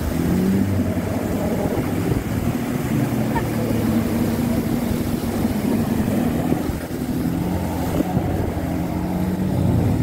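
Nissan Terrano's engine running hard under load as its tyres spin in the river, churning and throwing up water while it tries to climb the bank. The engine note wavers up and down over the rush of splashing water.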